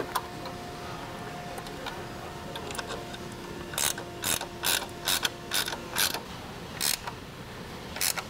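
Wrench tightening bolts on a metal light-tower lamp arm: a run of short metallic ratcheting clicks, about two a second, starting about four seconds in and stopping near seven seconds.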